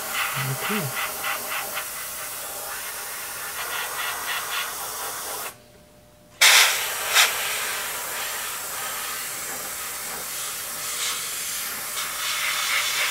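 Airbrush spraying black paint: a steady hiss of air and paint. About halfway through it stops for roughly a second, then starts again with a sharp burst and carries on.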